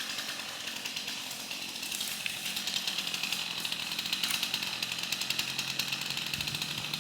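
Gas chainsaw running steadily, with a fast, even rattle.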